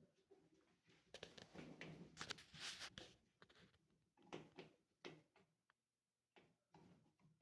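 Faint, irregular scraping and clicking of a hand tool prying at the stuck plastic parts of a top-load washer's agitator.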